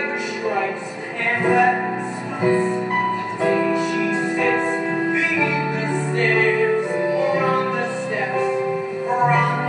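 Musical-theatre song: women's voices singing over piano-led accompaniment.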